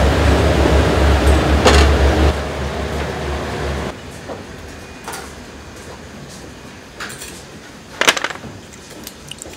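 Gas burner of a commercial kitchen range running under an aluminium pan: a steady low roar with a broad hiss, which drops away about four seconds in. After that a few light clicks, then a short clatter of turban shells against a metal tray near the end.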